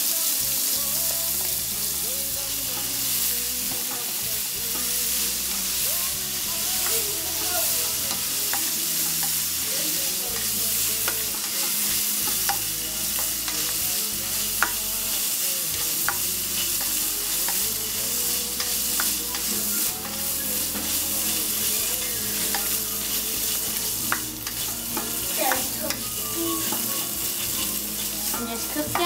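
Beans frying in hot olive oil in a large metal pan, a steady sizzle, stirred with a spatula that scrapes and taps against the pan now and then.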